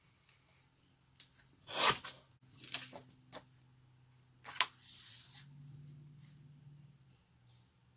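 Creative Memories paper trimmer cutting a photograph: a short rasping stroke of the blade along the rail about two seconds in, followed by several lighter clicks and knocks as the cut-off strip and the photo are handled and repositioned on the trimmer.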